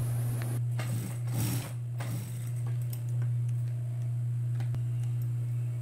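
Industrial sewing machine's motor humming steadily, with a few light clicks and rustles of fabric being handled in the first couple of seconds.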